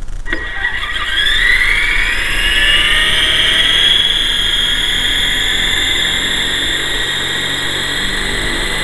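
GT Model QS8006 RC helicopter's electric motors spinning up the rotors: a whine that rises in pitch over the first three seconds or so, then holds steady as the rotors turn on the ground.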